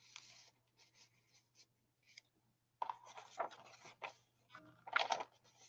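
Paper pages and tags of a handmade journal being handled and turned: soft rustling and scraping, faint at first, then louder from about three seconds in.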